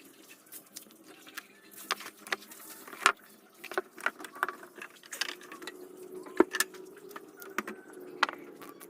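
Irregular clicks, taps and light clatter of small hard objects being handled, over a faint steady hum.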